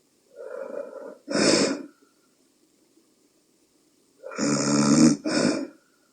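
A woman snoring in her sleep: two loud snores about three seconds apart, each breaking into two parts. She snores despite a nasal dilator inserted to widen her nostrils.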